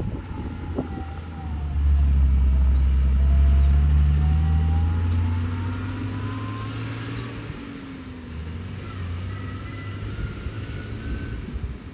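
A heavy vehicle's engine running: it swells to its loudest about two seconds in, holds for a few seconds, then slowly fades, with a faint rising whine above it.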